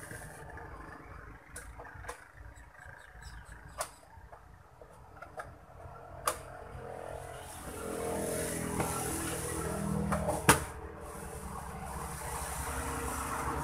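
Screwdriver and screws clicking and tapping against the metal case of a small electronics box as its cover is screwed down, with one sharper knock about ten seconds in. About eight seconds in, a louder steady rumbling noise rises underneath and stays.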